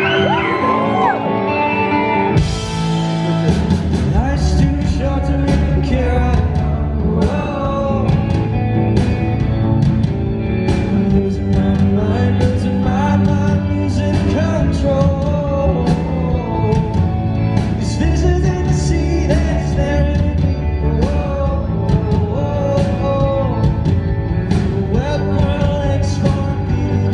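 Live rock band playing in a large hall, recorded from the audience, with a male lead vocal singing over it. Drums and bass come in about two and a half seconds in.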